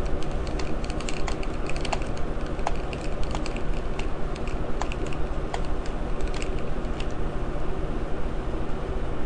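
Light, irregular clicks and taps of a small screwdriver and tiny screws against a laptop's plastic case as the screws under the battery bay are taken out. The clicks die away about seven seconds in, over a steady low hum.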